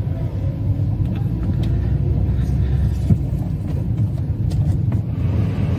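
Low, steady rumble of a small car's engine and tyres, heard from inside the cabin as it drives slowly along a street.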